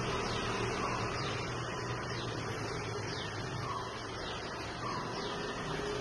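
Steady rushing background noise with faint, short falling bird chirps recurring every second or so.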